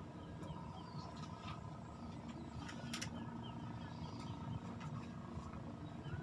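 Small birds chirping over and over above a steady low hum, with one sharp click about three seconds in.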